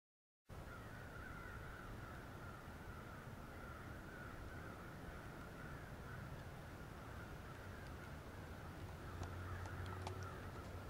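Faint, steady distant chorus of animal calls over a low rumble of wind, with a few light ticks near the end.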